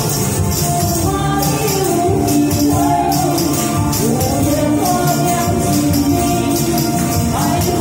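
A woman singing a melody into a microphone over a backing track, with handheld tambourines shaken and struck in time, their jingles prominent.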